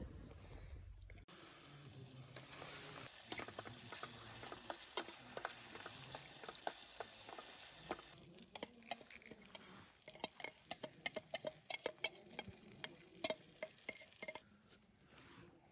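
Dry kindling, grass and a plastic bag being handled by hand to light a campfire: a faint hissy rustle full of small crackles and clicks, which grow denser in the second half.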